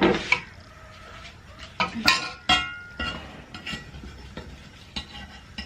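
Metal kitchenware being handled: a series of clinks and knocks, a few strikes ringing briefly, as utensils and pots or containers are picked up and set down.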